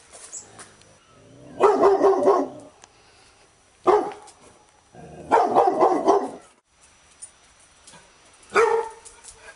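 Labrador retriever barking in four bouts with short quiet gaps between them: a quick run of barks about one and a half seconds in, a single bark, another quick run, then a single bark near the end.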